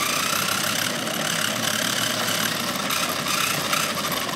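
A cheap toy RC car's small electric motor and gears whine steadily as it drives across a hard floor, with the rattle of its wheels and body. It is heard close up from a phone taped to the car.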